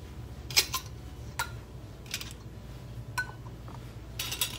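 Metal canning jar lids and rings clinking as they are picked from a pile and handled: a handful of short, separate clinks, with a quick cluster near the end.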